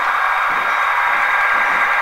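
Steady hiss-like running noise of HO-scale Southern Pacific model diesel locomotives moving slowly along the layout.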